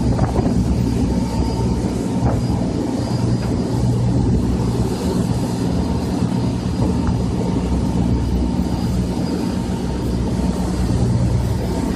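Motorboat engine running steadily under way, a low droning hum, with the rush of the churning wake.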